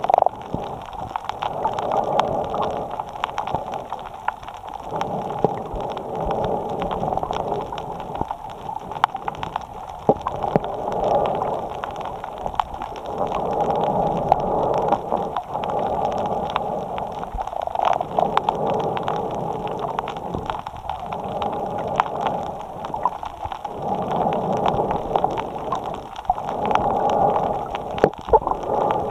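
A snorkeler breathing in and out through a snorkel, heard through a camera mounted on the snorkel itself: breath after breath in a slow rhythm, about one every two to four seconds, with small clicks throughout.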